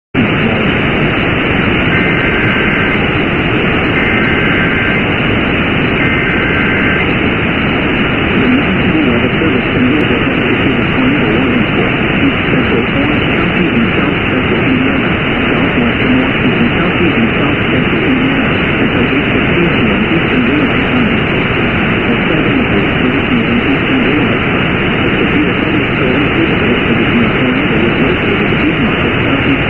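Loud, steady radio static, cut off above the treble. About two seconds in, three one-second bursts of an EAS SAME data header come through faintly beneath it, two seconds apart: the digital two-tone warble of an alert starting.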